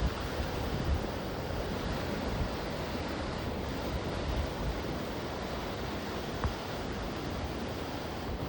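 Wind rushing and gusting against the microphone as a steady noise, with one brief high tick about six and a half seconds in.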